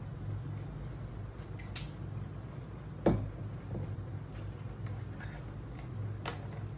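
A low steady hum with a few faint clicks, and one sharp tap about three seconds in.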